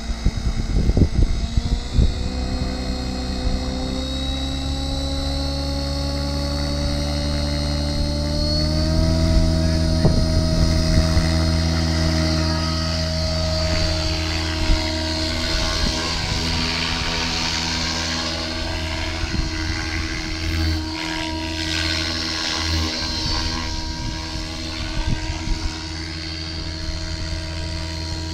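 Radio-controlled scale model helicopter spooling up, its motor and rotor whine rising in pitch over the first several seconds. It then holds a steady whine as it lifts off and flies. A few sharp knocks come in the first two seconds.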